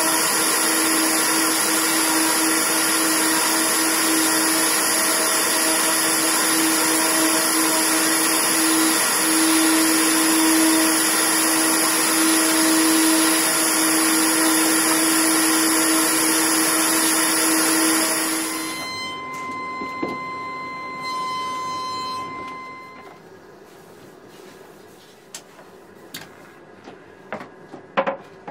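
Random orbital sander with its dust-extractor hose running steadily across a zelkova slab at 400 grit, a loud hiss over a steady hum. About 19 seconds in it stops and a fainter hum winds down over a few seconds, followed by a few light knocks near the end.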